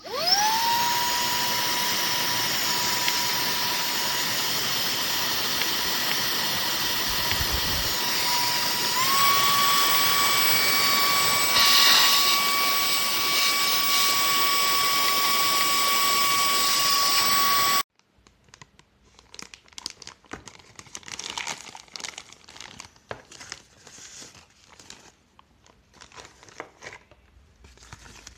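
SERVOMASTER cordless handheld vacuum cleaner switched on: its motor spins up to a steady high whine, steps up in pitch about nine seconds in as it goes to the higher of its two speeds, then cuts off suddenly. Scattered rustling and clicking follow.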